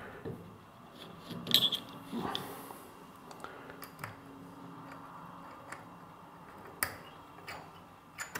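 Quiet, scattered clicks and taps of a screwdriver working screws on a camera's metal top plate, with the loudest click about a second and a half in and another sharp one near the end.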